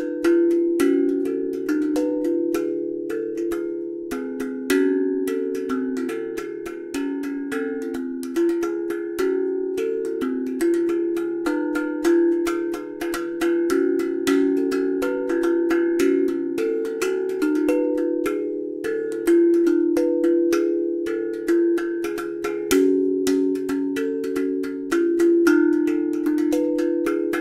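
Homemade steel tongue drum being played: a continuous stream of struck, ringing pitched notes, several a second, overlapping into a flowing melody.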